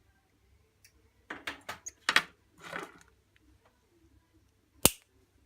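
Small hard clicks and scrapes of pliers working orthodontic wire: a quick run of clicks a little over a second in, and one sharp, louder click near the end.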